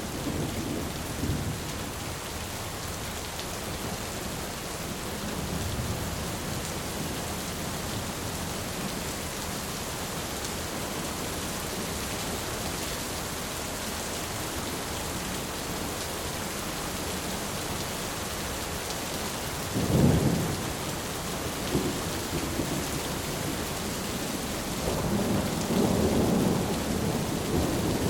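Steady heavy rain with a thunderstorm: low rumbles of thunder, one sharp clap about twenty seconds in, and a longer rolling rumble near the end.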